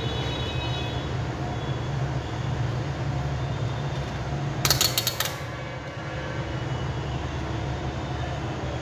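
Rotary selector switch of a digital multimeter clicking through several detents in quick succession about five seconds in, over a steady low hum.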